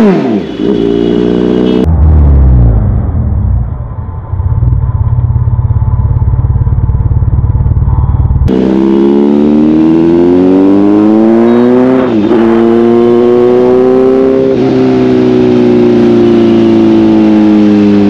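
Superbike engine on the move: a quick rev at the start, then a few seconds of heavy, muffled low rumble. After that the engine runs at road speed, its pitch rising and falling gently, with a short dip about halfway through like a gear change.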